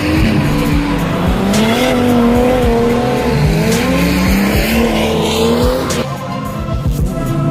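Drift car engine revving hard, its pitch rising and falling as the car slides, over the hiss of tyres squealing on the track. About six seconds in the car sound gives way to music.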